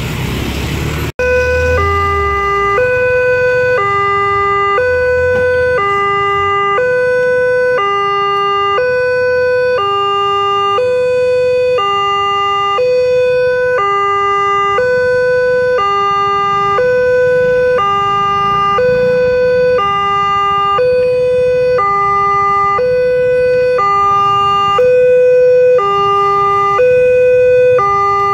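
Railway level-crossing warning alarm sounding a two-tone ding-dong, a higher and a lower tone alternating evenly about every 0.8 s, the signal that a train is approaching and the crossing is closed. It starts after about a second of motorcycle traffic that cuts off abruptly.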